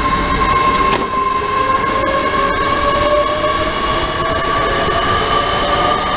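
A train accelerating, its drive note a steady whine that rises slowly in pitch as it picks up speed, over a rumble of running gear.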